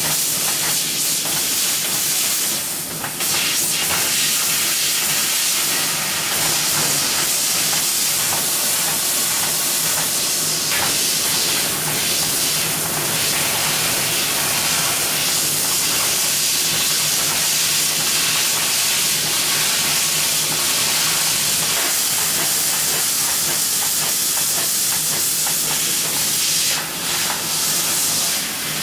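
Mazak Optiplex 3015 fiber laser cutting thin stainless steel with high-pressure nitrogen assist gas: a loud, steady hiss over a low hum, dipping briefly about three seconds in and again near the end.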